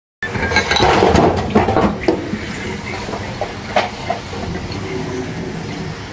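Tap water running into a stainless steel sink while dishes are washed by hand, with a clatter of crockery in the first two seconds and a few lighter knocks later.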